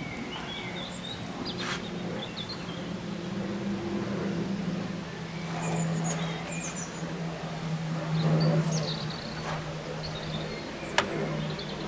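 Birds chirping in short calls over a steady low motor hum that swells in the middle and then eases, with a few sharp clicks.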